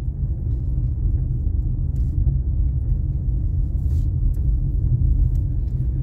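Steady low rumble of a car being driven, engine and road noise without speech.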